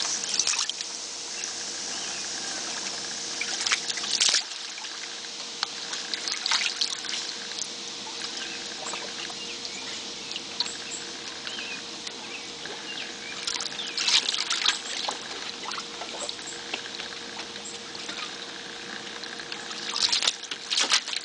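A dog pawing and splashing at shallow water in a plastic kiddie pool: water trickling and lapping, broken by short bursts of splashing, the loudest about four seconds in, around the middle and near the end.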